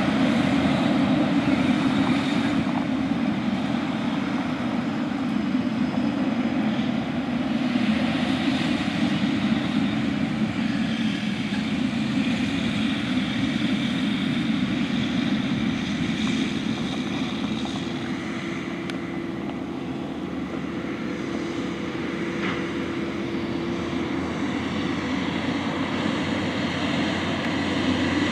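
John Deere S790 combine harvesting wheat: a steady drone of engine and threshing machinery that eases a little past the middle and builds again near the end.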